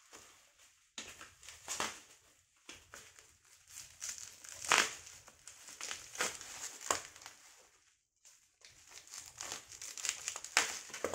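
Plastic bubble wrap crinkling and rustling in irregular bursts as small cosmetic jars are unwrapped from it by hand, with a brief pause about eight seconds in.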